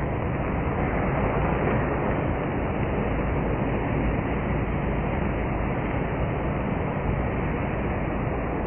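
Saucepan of milk boiling over on a gas burner, its foam spilling down the sides of the pan: a steady hiss and rumble.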